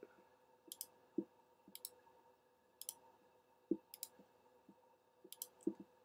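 Computer mouse clicking about once a second while edges are selected for a fillet, several clicks coming as quick double ticks. Three dull low knocks fall between them, the loudest a little past halfway.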